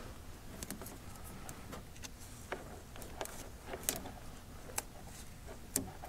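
Faint handling sounds of electrical tape being wrapped around two joined wires: scattered small clicks and crackles, a few a second.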